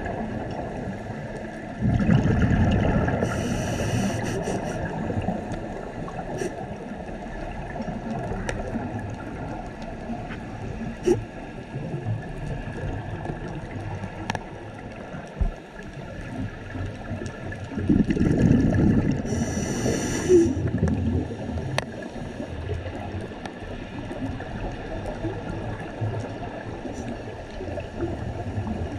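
Muffled underwater ambience picked up by a camera below the surface: a steady low rumble and gurgling of water, with two louder bursts of bubbling and hiss, one about two seconds in and one about eighteen seconds in, and a few faint clicks.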